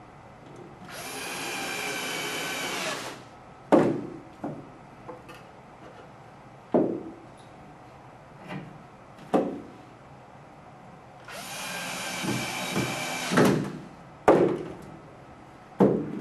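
Cordless drill driving screws into the wooden frame in two steady runs of about two seconds each, one about a second in and one past the middle. Sharp wooden knocks come between the runs as the boards are handled and set on the table.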